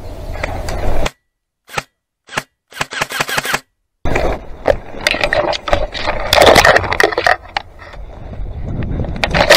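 Airsoft guns firing: a few sharp pops and a quick rapid string of shots against silence, then a stretch of dense crackling and rustling with more sharp snaps, loudest near the end.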